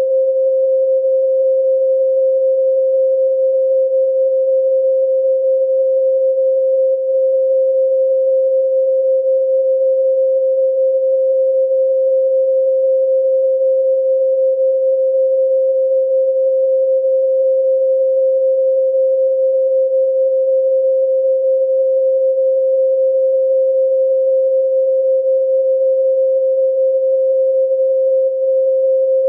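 A pure 528 Hz sine tone, held steady without change.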